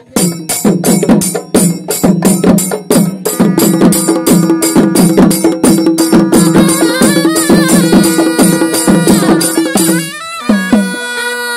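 Traditional Tamil festival drumming: rope-laced barrel drums beat a fast, even rhythm of about four strokes a second, and a long held note with overtones joins about three seconds in. The drumming stops about ten seconds in while the held tones carry on.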